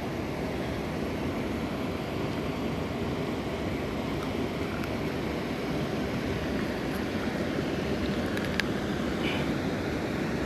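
Steady rush of water pouring over a lake spillway.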